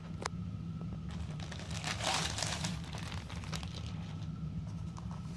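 Clear plastic packaging bag crinkling as a folded solar charger is pulled out of it. The rustling is loudest about two seconds in.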